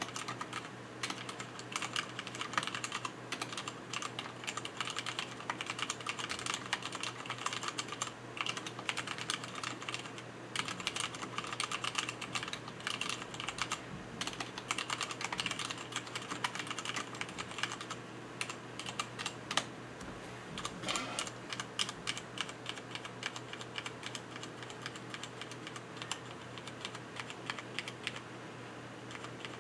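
Continuous fast typing on a mechanical keyboard with Cherry MX Black linear switches and PBT keycaps: a steady stream of key clacks.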